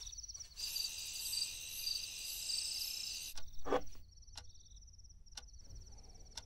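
Crickets chirring in a pulsing, high-pitched night chorus, denser for the first few seconds. A few sharp clicks come about a second apart in the second half.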